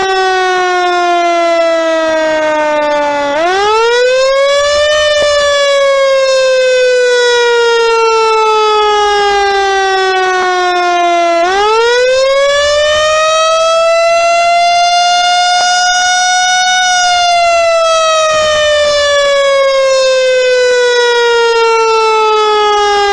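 Fire engine siren wailing slowly. The pitch sinks gradually, sweeps back up about 3.5 seconds in and again about 11.5 seconds in, holds near the top for a few seconds, then falls off slowly once more.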